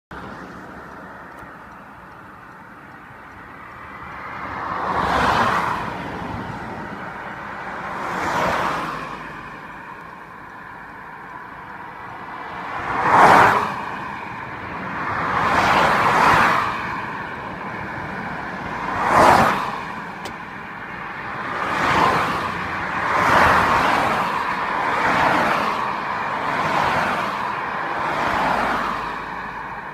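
Motorway traffic passing one vehicle after another, about ten in all, each a rush of tyre and wind noise that swells and fades over a low steady road hum. Two quick passes in the middle are the loudest.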